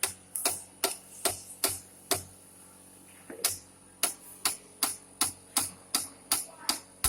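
Hammer blows on the steel of a milling machine's arbor, a steady run of sharp metallic knocks about two or three a second. The blows pause for about a second after two seconds, then resume. They knock the arbor or collet loose so it can be turned by hand. A faint steady high whine sits under them.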